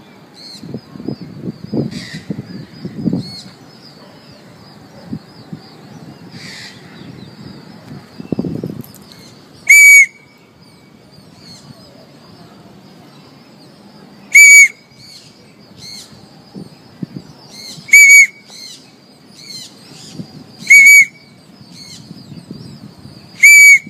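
A parrot screeching loudly five times, each a short shrill call a few seconds apart, starting about ten seconds in.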